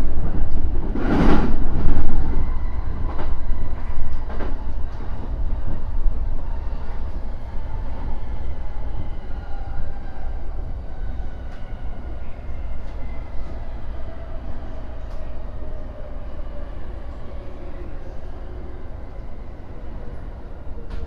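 Electric train (JR E231 series 1000) running and slowing: its motor whine falls steadily in pitch over the second half under the rumble of wheels on rail. A loud rushing burst comes about a second in.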